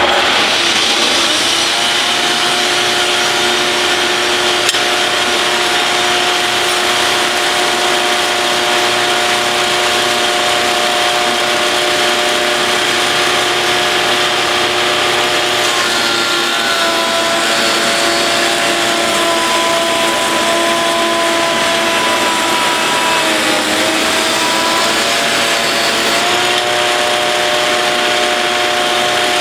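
1985 Shopsmith's motor switching on and spinning up to a steady hum, driving the jointer cutterhead. Around the middle the pitch drops and wavers while a board is fed across the jointer, then it comes back up to speed near the end.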